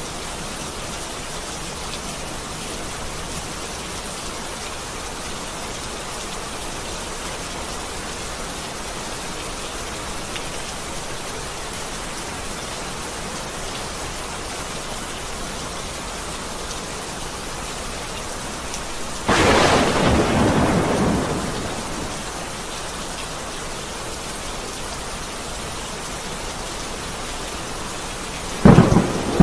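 Steady heavy rainfall in a thunderstorm. About two-thirds of the way through, a sudden loud thunderclap fades over a couple of seconds, and sharp cracks of a second thunderclap begin near the end.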